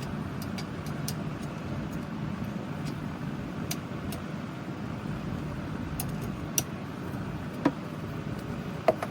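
Scattered light clicks and three sharper metallic clinks with a short ring, the last two near the end, from hand tools being handled during work on a SeaStar hydraulic steering cylinder, over a steady low background rumble.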